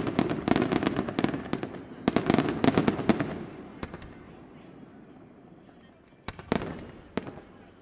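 Aerial firework shells bursting in a dense run of sharp bangs and crackles for about three seconds, then dying away, with a few fresh bangs near the end.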